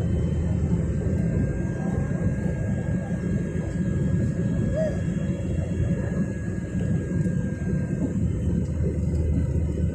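Airliner cabin noise in flight: a steady low rumble of engines and airflow, with a faint steady whine above it.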